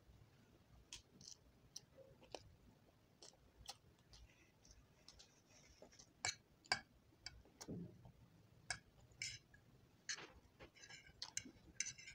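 Quiet eating sounds: scattered sharp clicks and short wet mouth sounds of chewing instant noodles, with a metal fork tapping and scraping the tray.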